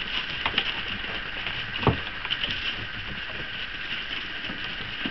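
Small paws of cocker spaniel puppies pattering and scrabbling on gravel and wooden steps, a scatter of light irregular ticks and knocks, with one louder thud about two seconds in.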